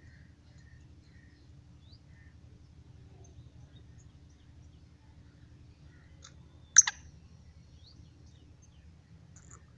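Faint chirps of small birds over a low steady rumble. About seven seconds in, one short, loud, harsh call note from a caged black francolin.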